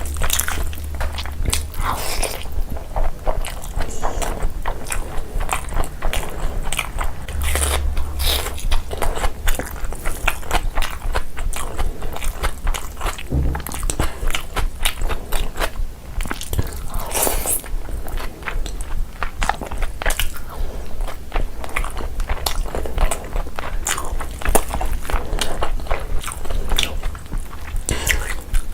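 Close-miked mukbang eating: crunchy food being bitten and chewed, a dense, irregular run of crisp crunches that goes on throughout.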